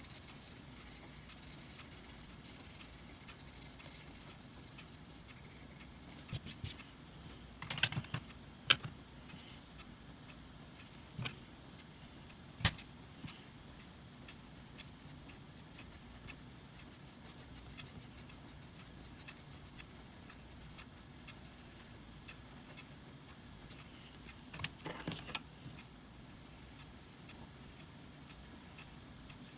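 Coloured pencils clicking and clattering a handful of times as they are handled, picked up and set down, over a faint steady hiss. There is a small cluster of clicks about a quarter of the way in, single clicks a little later, and another short clatter near the end.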